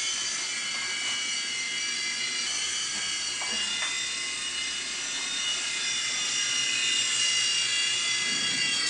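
Blade mCX micro coaxial RC helicopter in flight: a steady high whine of its small electric motors and spinning rotors, the pitch wavering slightly as it is flown.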